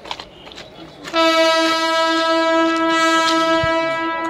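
Railway locomotive horn sounding one long, steady blast that starts about a second in.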